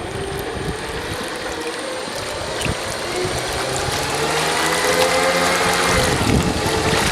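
Twin brushless electric motors driving 40mm water-jet units, running with a mechanical whine over rushing, splashing water. The whine climbs in pitch in the second half, then changes near the end.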